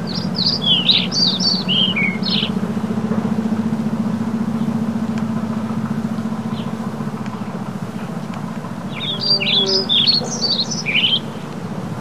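A songbird sings two phrases of quick, chirpy notes, each about two seconds long, one at the start and one near the end. A steady low hum runs underneath.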